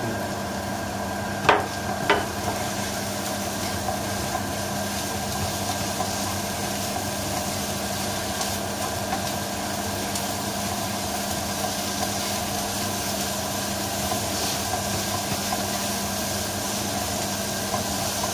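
Minced beef and onions sizzling steadily as they fry in a pan, stirred with a wooden spatula, with two sharp knocks about a second and a half and two seconds in. A steady hum runs underneath.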